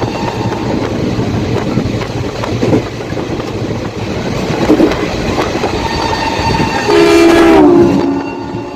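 Train running past at speed, a steady rumble with the clickety-clack of wheels over rail joints. About seven seconds in, a WAP-7 electric locomotive's horn sounds one loud blast of about a second, dropping in pitch near its end as it passes.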